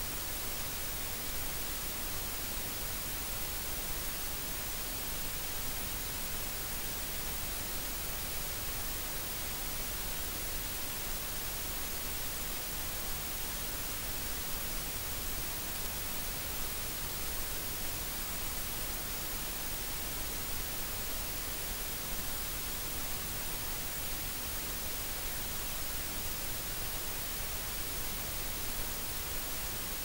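Steady white noise: an even, unchanging hiss with no other sounds in it.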